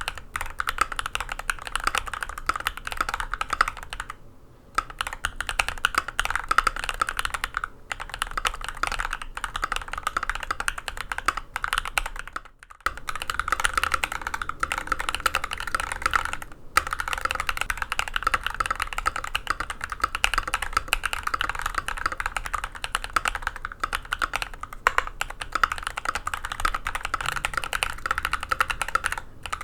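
Continuous typing on a mechanical keyboard with Prevail Nebula long-pole switches in nylon housings, lubed and filmed, under PBT keycaps on an aluminium plate. Short pauses break the typing, the longest about 13 seconds in, after which the typing resumes.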